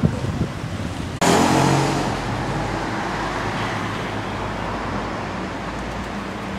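Outdoor noise with wind on the microphone, cut off abruptly about a second in by a steady low engine hum and rushing water and wind noise of a canal boat under way.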